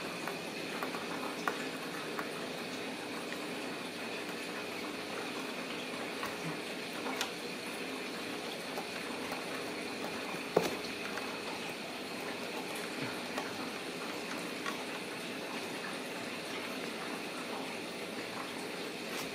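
Ragdoll kittens scrabbling on a plastic toy car: scattered light clicks and taps, with one sharper knock about ten seconds in, over a steady background hiss.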